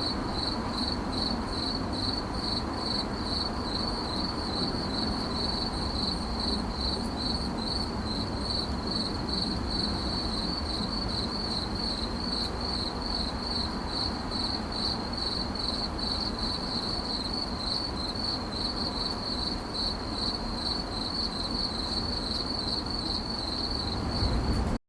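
A cricket chirping: a high-pitched chirp repeated rapidly and evenly, over a low background rumble. It cuts off abruptly at the very end.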